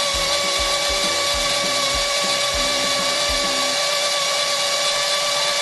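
Electric kitchen blender running at a steady speed with a constant high motor whine, blending chopped fruit with milk.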